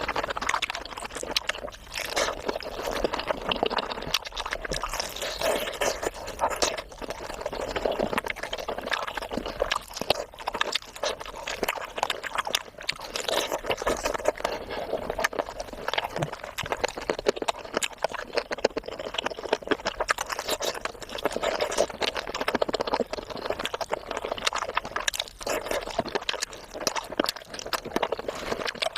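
Close-miked wet chewing and slurping mouth sounds of a person eating, a continuous dense crackle of small sticky clicks.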